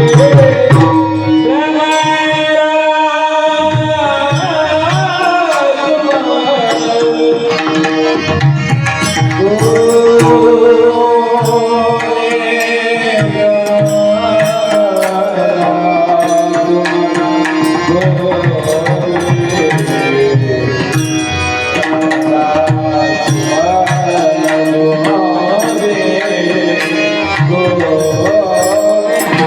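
Marathi kirtan devotional singing: a solo voice sings long, ornamented gliding phrases to tabla accompaniment, over a steady held note underneath.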